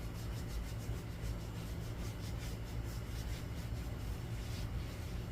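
Faint rubbing of an applicator pad lightly buffing coating into plastic trim, over a steady low hum.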